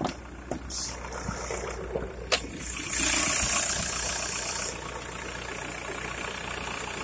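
Volkswagen 1.9 TDI four-cylinder turbodiesel idling steadily. A sharp click comes about two seconds in, followed by a loud hiss for about two seconds.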